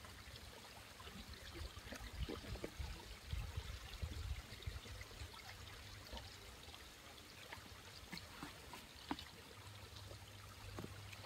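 Faint footsteps on a weathered wooden plank boardwalk: scattered light knocks of shoes on loose boards, over a low rumble that swells about two to four seconds in.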